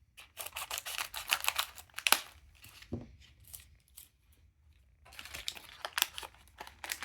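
Small plastic toy packet being torn open and crinkled by hand: two bouts of crackly rustling with a quieter pause between them.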